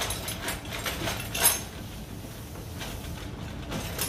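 Packaged metal spoon lures and pegboard hooks clicking and rattling as the packs are hung on a display board: a handful of short clicks in the first second and a half, the loudest about a second and a half in, then quieter handling and one more click near the end.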